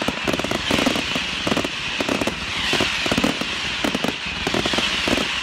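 Fireworks crackling in a rapid, uneven string of sharp cracks over a continuous rushing noise.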